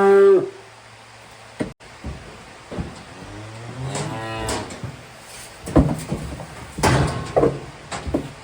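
Newly weaned calves bawling: one loud call right at the start and a second, lower and longer call about four seconds in. Several sharp knocks follow near the end.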